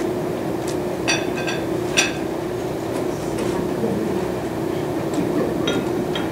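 Steady room hum with a few short, ringing clinks about one and two seconds in, and lighter clicks near the end.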